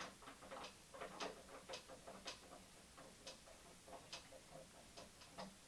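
Plastic membrane housing cap of a reverse osmosis filter being unscrewed by hand, its threads giving a string of faint, irregular clicks, about two a second.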